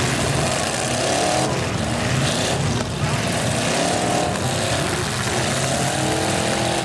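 Several demolition derby cars' engines revving up and down together, over a steady loud engine din.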